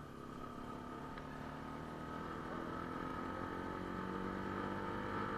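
Motorcycle engine pulling steadily, its note rising slowly and growing louder as the bike accelerates.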